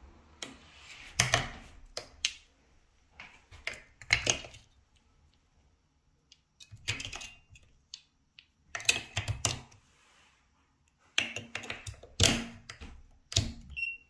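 AA batteries being pushed into the spring-contact battery compartment of a smart deadbolt's interior unit: irregular sharp plastic clicks and clacks in small clusters, with a short high beep right at the end.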